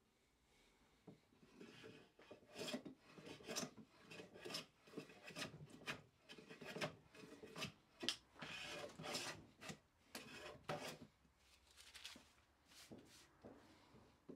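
Hand smoothing plane shaving the face of black walnut blocks in quick repeated strokes, about two a second, each a short rasping swish. The strokes fall off and grow sparse after about eleven seconds.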